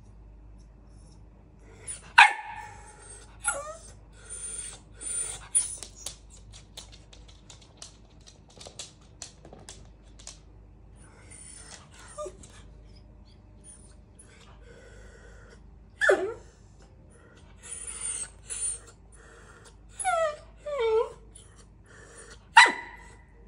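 Small fluffy dog barking at its own reflection in a mirror: single sharp barks several seconds apart, the loudest about two seconds in. Scattered small clicks fall between them, and there are a couple of shorter falling yelps near the end.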